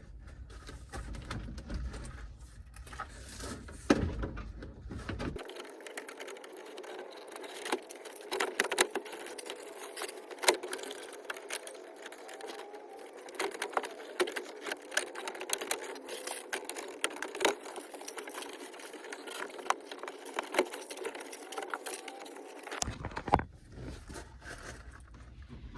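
Plastic door trim panel of a 1999–2004 Ford Mustang being worked onto the door: scattered sharp clicks and knocks of its plastic tabs and clips, with rapid clattering, sounding thin through most of it.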